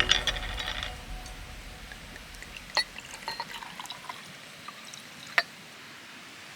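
Liquid pouring and trickling, with scattered light clicks and one sharp click a little after five seconds.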